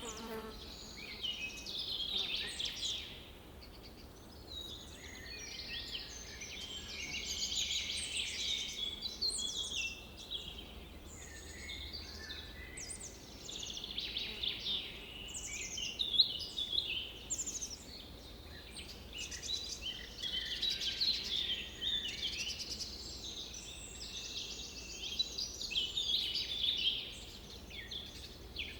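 Several birds singing and calling at once: a steady, overlapping chorus of high chirps and trills, with short lulls now and then.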